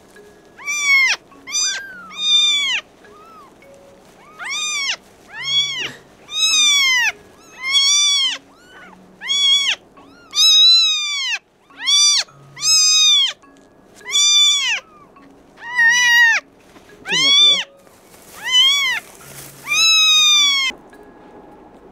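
Newborn kitten mewing loudly and over and over, a string of high cries about a second apart, each rising then falling in pitch, as its bottom is wiped with tissue to stimulate it to pass stool.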